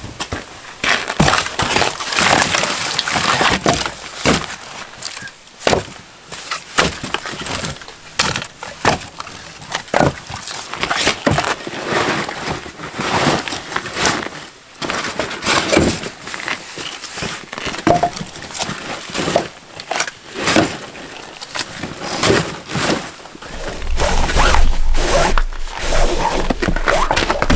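Split birch firewood logs being stacked onto a loaded sled, wood knocking and clattering against wood at irregular intervals, with rustling of the fabric sled bag. Near the end a low rumble joins in as a rope is drawn over the bag to lash the load.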